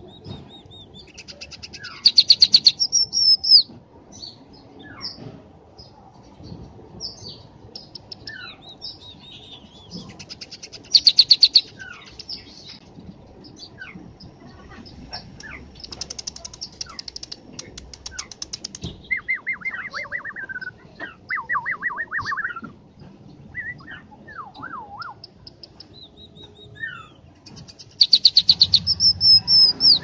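Caged scaly-breasted munia singing: four loud bursts of rapid clicking notes, with thin high whistles and short slurred notes between them and a run of falling notes about two-thirds of the way through.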